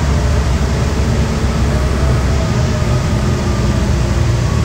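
Steady road and engine noise inside a moving vehicle: a loud low rumble with faint humming tones over it.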